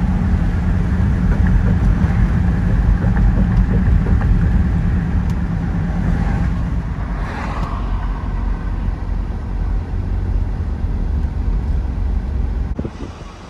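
Vehicle running with a steady low rumble, easing off near the end.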